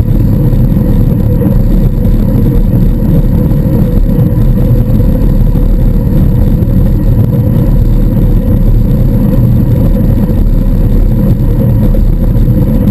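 Steady wind rush and road noise on a bicycle's handlebar-mounted camera at racing speed, with a steady hum underneath and motor traffic passing alongside.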